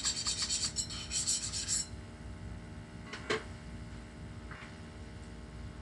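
A scraper rubbing leftover plastic off a 3D printer's build plate in quick, even strokes that stop about two seconds in. A single sharp click follows a little after three seconds.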